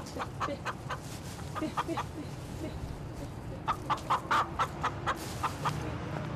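Domestic chickens clucking: short, repeated clucks, with a quicker run of louder clucks about three and a half to five seconds in.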